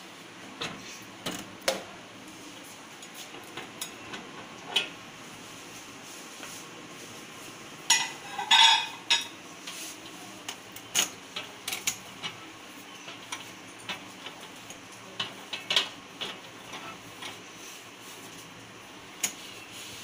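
Scattered light knocks and taps against the inside of a microwave oven while it is wiped with a cloth, with a loud cluster of ringing glassy clinks about eight seconds in as the glass turntable plate is handled.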